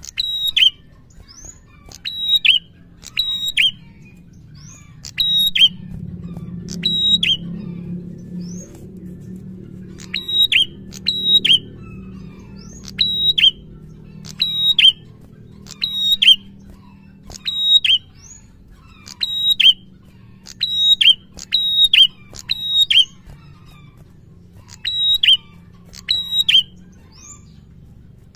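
Tailorbird (prenjak) singing: loud, sharp, high notes that drop in pitch at the end, given in quick pairs or triplets about every second and a half, with one short pause about a third of the way in.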